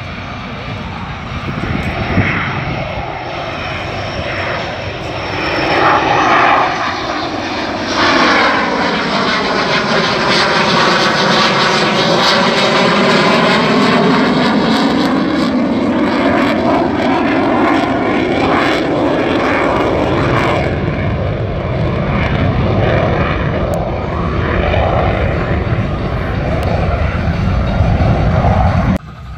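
Twin-engine F/A-18 Hornet-family fighter jet flying low overhead with its gear down. Its jet engine noise builds and is loudest for about twelve seconds in the middle, with a sweeping, phasing sound as it passes, then eases off as it moves away. The sound cuts off abruptly near the end.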